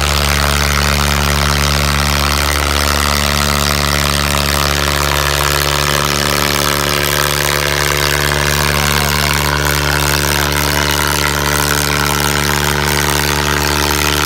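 Diesel engines of a Swaraj 855 and a John Deere 5310 tractor running hard under full load, pulling against each other in a tug of war. The engine note holds steady throughout, with no revving up or down.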